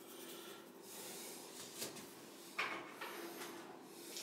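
Mostly quiet room tone with a faint steady hum. About two and a half seconds in comes a brief sharp rustle, then a few small knocks and rubs of handling as a hand moves close to the camera.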